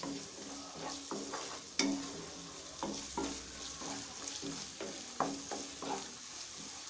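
Eggs frying in hot oil in a pan with onion, sizzling steadily, while a spatula stirs and scrapes them in irregular strokes; one sharper knock of the spatula about two seconds in.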